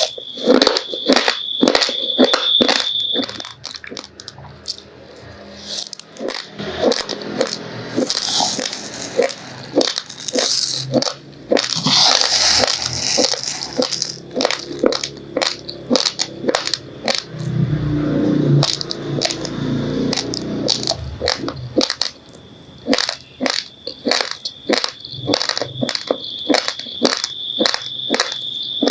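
Raw, uncooked rice grains crunched between the teeth while chewing: a fast run of sharp, brittle cracks, several a second. A steady high-pitched whine sounds under it at the start, drops out, and returns about two-thirds of the way through.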